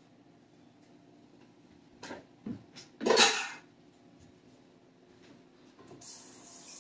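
A metal spoon knocks against a glass mixing bowl a few times, then a louder clatter comes about three seconds in. Near the end a kitchen tap starts running.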